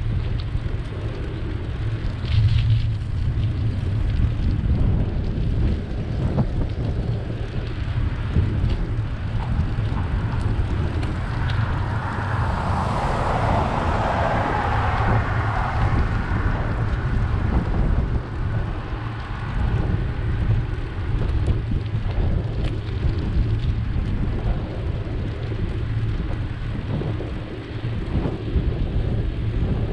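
Wind buffeting the microphone of a camera on a moving bicycle, with a steady low rumble from riding over the road surface. A car goes by about twelve to sixteen seconds in.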